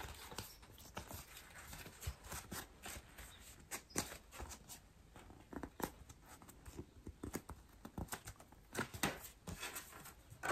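Faint, irregular taps and rustles of paper and cardboard being handled: a pack of greeting cards turned over in the hands and its cardboard backing worked loose.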